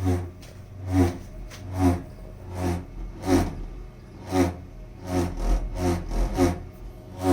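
Weil-McLain boiler making a pulsing vibrating noise. The pulses come about once a second and bunch closer together after about five seconds in, over a steady low hum.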